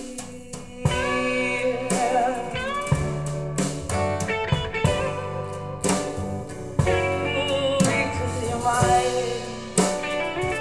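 Blues music played through Totem Mite loudspeakers and picked up in the room: an instrumental passage of guitar with bent, wavering notes over drums and a low bass line.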